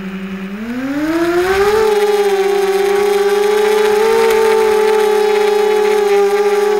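Quadcopter's Sunnysky 2300KV brushless motors with 5x4 props whining. The pitch rises over about a second as the throttle comes up for takeoff, then holds a steady high whine.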